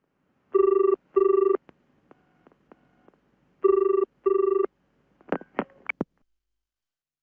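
Telephone ringing tone on the line, the British double ring: two pairs of short rings about three seconds apart. A few sharp clicks follow about five seconds in as the call is picked up.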